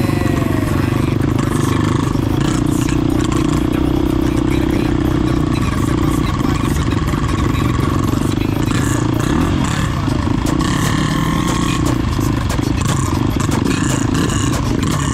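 Dirt bike engine running steadily while riding, its pitch and loudness holding fairly even throughout.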